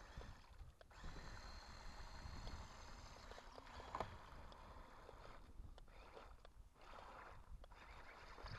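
Small electric motor of a toy RC amphibious tank-boat running faintly as its paddle tracks churn through a muddy puddle, with water splashing.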